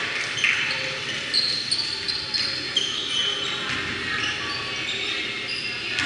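Basketball being dribbled on a hardwood gym floor, with short high squeaks of sneakers on the court as players run and cut.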